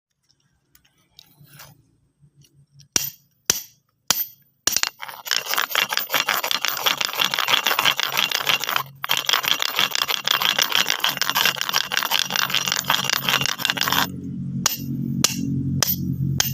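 Stones clicking and clattering against each other: a few single clacks, then a long dense rattle of many stones knocking together, broken once by a short pause. Near the end a low steady musical drone comes in under a few more clicks.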